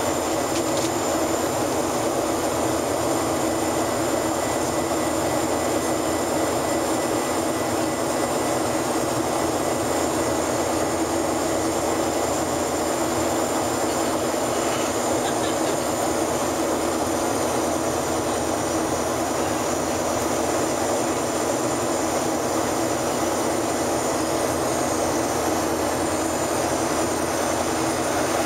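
Steady cabin noise inside a Boeing 737-800 climbing after takeoff: the rush of air along the fuselage and the drone of its CFM56 turbofan engines, with a constant hum and no change in level.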